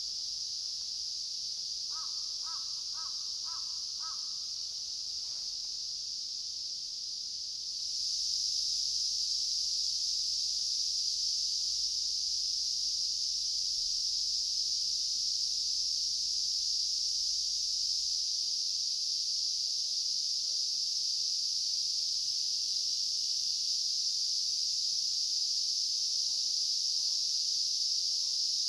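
Cicadas droning steadily, a high-pitched chorus that gets louder about eight seconds in. Near the start a bird gives five quick call notes.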